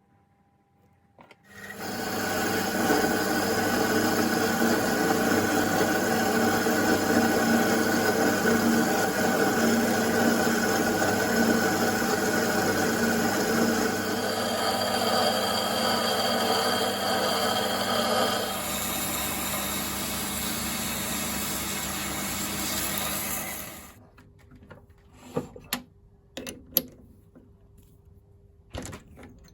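Small bench-top metal lathe running steadily with a motor whine, starting about a second and a half in, changing tone twice and stopping near the end, followed by a few light clicks and knocks.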